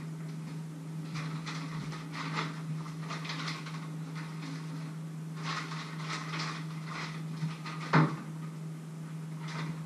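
Rustling and clattering of kitchen items being handled at a counter, including a paper packet, in several short bursts, with a single sharp knock about eight seconds in, over a steady low hum.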